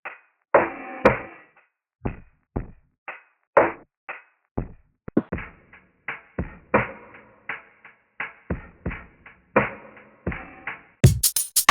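A run of separate percussive one-shot samples, muffled knocks and thuds, each with a short decay, about two a second. Near the end a brighter drum-machine beat comes in.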